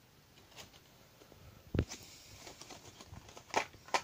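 Hands handling a battery charger and its packaging: a dull thump just under two seconds in, scattered light clicks, and two short sharp crinkles of plastic and cardboard near the end.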